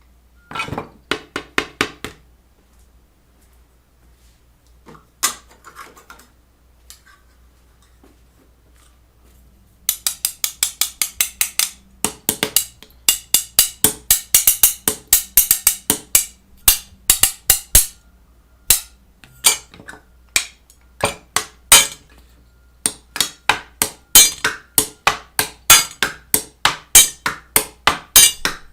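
Repeated sharp knocks on a hard object. A few come at first, then a quiet spell of several seconds, then a fast run of about six knocks a second, followed by runs of strikes at a slower pace.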